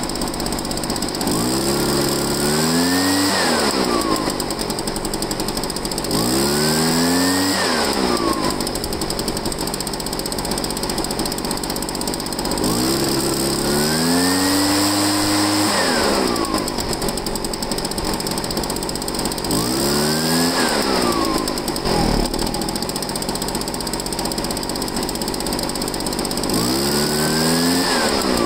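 Echo PB-500H backpack leaf blower's two-stroke engine idling and revved up five times, each rev rising in pitch and falling back to idle, about every six seconds. The blower has an intermittent bogging problem that the owner can only put down to the carburetor.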